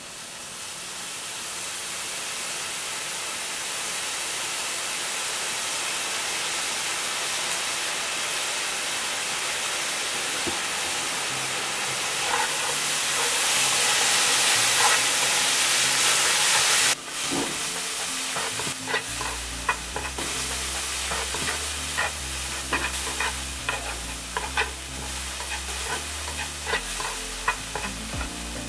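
Yakisoba noodles frying in a hot pan. The sizzle swells as sauce is poured on and the noodles are stirred, drops suddenly about two-thirds through, then carries on more quietly with quick clicks of wooden chopsticks against the pan.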